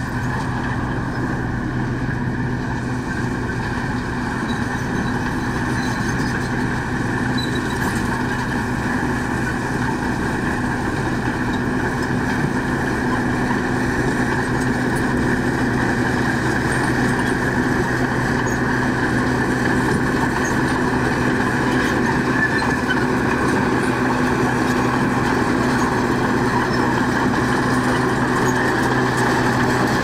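Diesel engine of a heavy earthmoving machine running steadily, with a low hum that grows gradually louder over the stretch.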